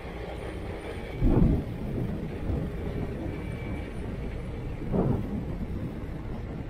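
Diesel excavators and a tracked loader working, a steady low rumble. A few heavier low thuds stand out, the loudest about a second in and another near five seconds.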